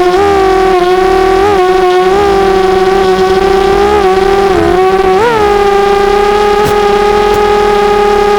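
Brushless motors of an FPV250 quadcopter whining in flight, with short quick rises in pitch as the throttle is blipped several times in the first five seconds, then a steady pitch from about five and a half seconds in.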